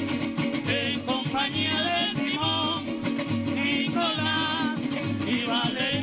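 Golpe tocuyano (golpe larense) played live by a small traditional ensemble: strummed cuatros and a beaten barrel drum keep a steady, lilting rhythm under men singing with vibrato.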